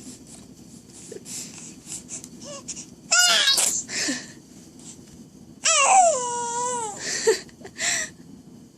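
A three-month-old baby vocalizing: a sudden loud squeal about three seconds in, then a longer loud whine that falls in pitch and holds for about a second, with short snuffly breaths near the end.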